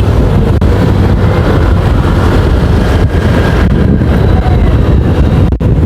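Wind rushing over the microphone on a moving motorcycle, mixed with the steady running of the bike and its road noise. The sound dips briefly near the end.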